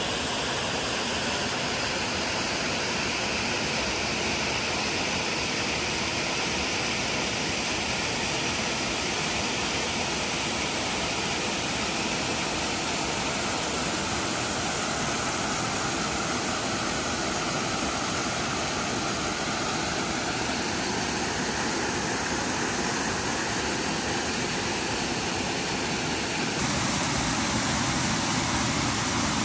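Waterfall pouring into a rocky pool, a steady rushing of falling water. The rush changes a little near the end.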